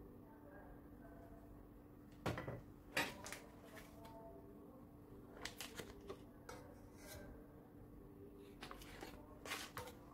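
Scattered light clinks and knocks of a knife and kitchenware against an enamelled cast-iron pan as butter is cut and dropped in, the two sharpest about two and three seconds in. A faint steady hum runs underneath.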